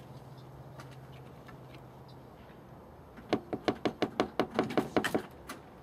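Rapid knocking on the frame of a glass storm door by a hand in a padded fursuit paw: about a dozen quick knocks in a burst of roughly two seconds, starting a little past halfway.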